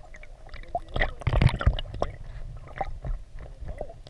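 Muffled water sloshing and gurgling heard from a camera held under the surface, with scattered small clicks and knocks and a louder run of knocks about a second and a half in.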